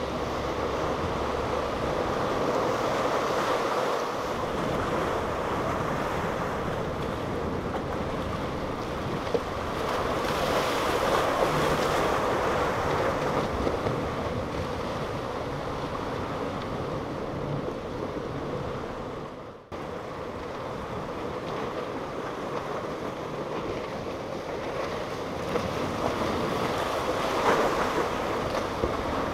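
Boats running at speed through choppy inlet water: a steady engine drone under the rush of wake spray and waves, with wind buffeting the microphone. The sound cuts out for an instant about two-thirds of the way through, then carries on.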